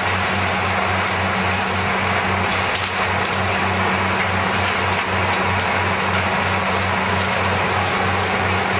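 Background music with a steady low pulsing beat, about three pulses a second, over a dense crackling hiss.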